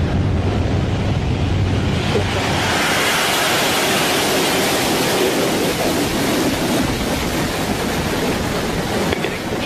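Electron rocket's nine Rutherford first-stage engines at liftoff: a loud, steady noise, deep at first, that spreads into a broad hiss about two seconds in as the rocket climbs away.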